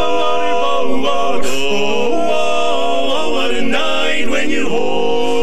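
Barbershop quartet of four men singing a cappella in close four-part harmony, holding and moving through sustained chords.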